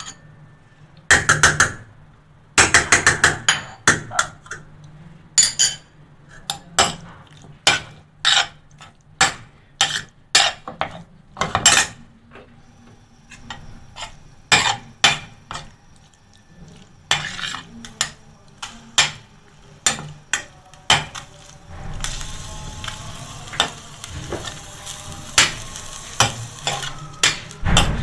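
A steel spoon clinks and scrapes repeatedly against a stainless steel frying pan as diced chicken is stirred in a little oil. Past the middle, a steady sizzle rises under the clinks as the chicken starts to fry.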